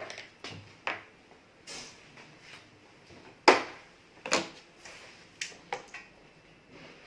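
A series of irregular knocks and clicks, the loudest about three and a half seconds in and another just under a second later.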